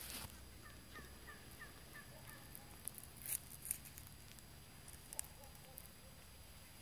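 A flock of wild turkeys calling faintly: a quick run of short calls, then a few fainter calls later, with several sharp clicks and rustles in between.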